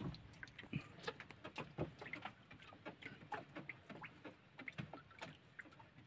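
Faint, irregular small clicks and taps, several a second, from a small wooden outrigger fishing boat resting on calm water.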